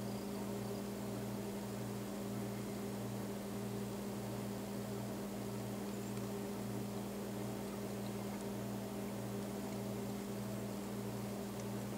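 Steady low mechanical hum over a constant hiss, unchanging throughout.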